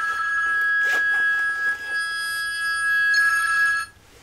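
Mobile phone ringtone ringing, a loud steady high two-pitch tone with many overtones; it stops abruptly near the end as the call is answered.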